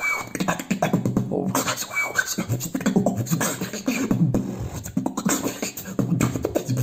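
Solo human beatboxing: a fast, dense run of mouth clicks and snare-like hits over pulsing low bass sounds.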